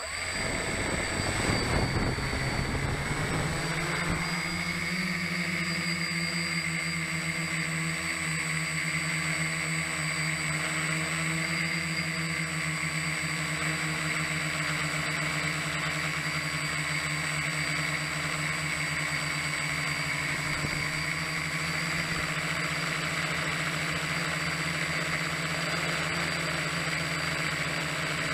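Small drone's electric motors and propellers, heard from its onboard camera: they start suddenly, are loudest over the first couple of seconds as it lifts off, then hold a steady whine in flight.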